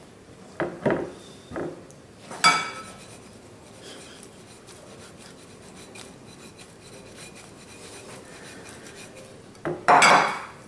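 A bowl of flour and crayfish pieces handled on a kitchen counter. A few knocks and a ringing clink come in the first few seconds, then a soft rustle as the bowl is shaken to coat the pieces, and a loud clunk as the bowl is set back down near the end.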